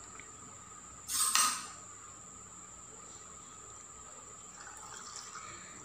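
Pineapple juice poured from a bowl into a glass of ice cubes: a short noisy splash about a second in, then faint pouring near the end.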